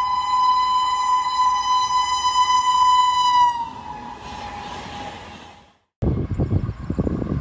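A train horn held on one steady note, cutting off about three and a half seconds in and followed by a hiss that fades away. After a brief silence, a loud low rumble of a train on the tracks starts near the end.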